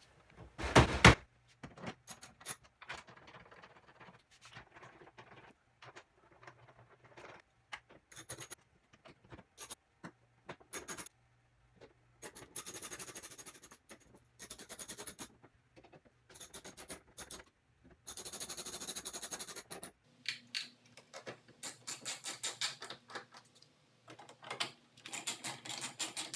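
Hands working plastic tailgate trim and a light assembly back into place: scattered clicks, scrapes and knocks, one loud knock about a second in, and several short runs of fast, even clicking later on.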